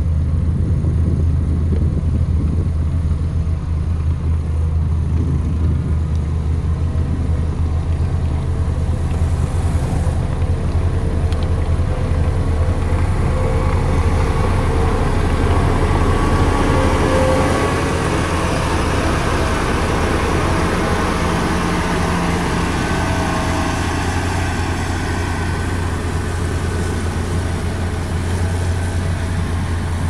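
LiuGong single-drum padfoot roller compactor running over loose soil and rock: a steady low diesel-engine rumble, growing louder and fuller through the middle as the machine passes close.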